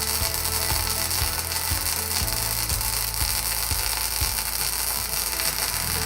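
MIG welding arc crackling steadily as a trackless welding carriage runs a fillet weld.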